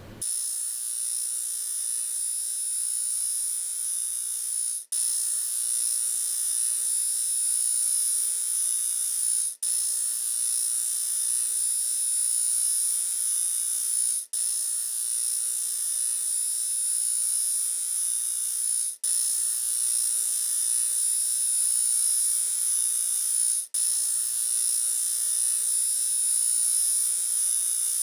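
A steady high-pitched hissing buzz that cuts out for an instant about every five seconds.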